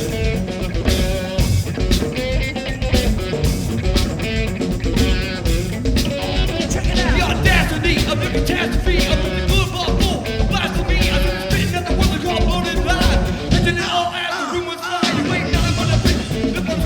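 Live rock band playing loudly, with electric guitar and drums; the bass end drops out for about a second near the end before the full band comes back in.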